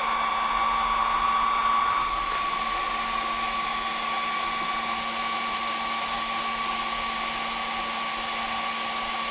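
ISDT FD-100 discharger's small cooling fan running steadily at full speed with a shrill whine over its airflow hiss.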